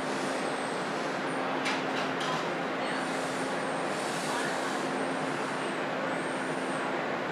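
A Toronto TTC T1 subway train running through the station: a steady rumble and low hum, with high-pitched wheel squeal that rises and falls three times and a couple of sharp clicks about two seconds in.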